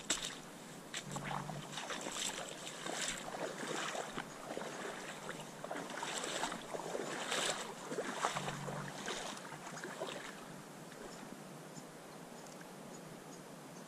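Footsteps wading through shallow water: irregular splashing and sloshing strides that stop about ten seconds in, leaving a faint steady background with a few light ticks.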